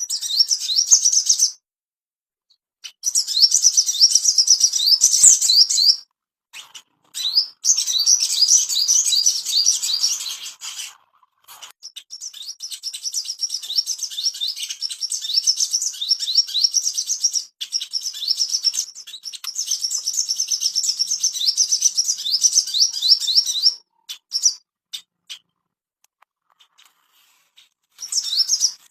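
Crimson sunbird (sogon) singing: long phrases of rapid, high-pitched twittering made of quick sliding notes, broken by short pauses of a second or two.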